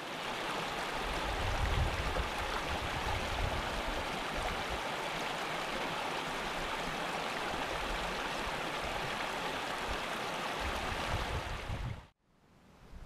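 Shallow mountain stream running over rocks, a steady rushing babble that fades in at the start and stops abruptly near the end.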